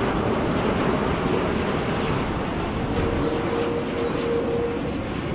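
Airbus A330-900 airliner on landing approach with gear down, its Rolls-Royce Trent 7000 turbofans giving a steady jet rush. A faint steady whine shows through the rush from about three seconds in.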